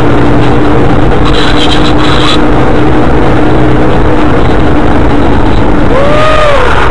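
Loud, steady road and engine noise of a moving vehicle with a steady hum, which stops about six seconds in; a brief rising-then-falling whine follows.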